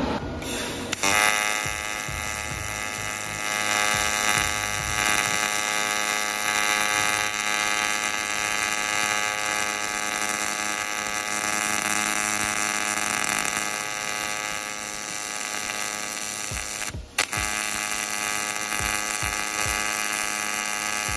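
AC TIG welding arc from a Taiwan Power TIG-200ADP inverter welder, set to 4T, non-pulsed, rounded-wave AC: a steady buzz starts about a second in. It breaks off briefly about three-quarters of the way through as the arc stops and is struck again.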